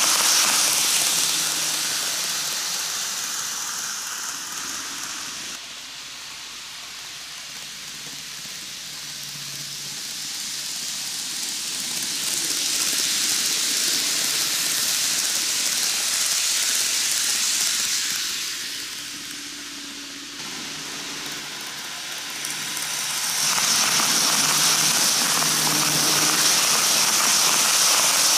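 A 12-car N-gauge model train of Keikyu 2100 series cars running on model track, a steady hissing rattle that swells as the train passes close by and fades as it goes round the far side of the loop, three loud passes about every 12 seconds.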